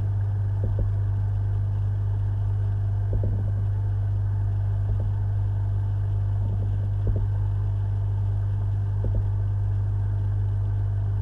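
Steady low hum from aquarium equipment, with a few soft knocks now and then.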